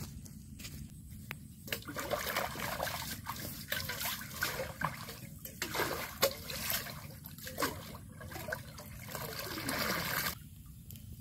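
Pond water being splashed and scooped by hand, uneven sloshing with quick splashes, then a stream of water poured back into the pond that cuts off suddenly near the end.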